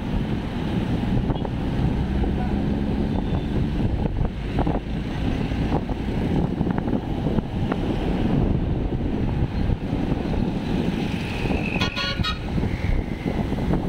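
Wind rushing over the microphone of a moving bicycle, with traffic rumble from the road. Near the end a vehicle horn gives a brief rapid toot.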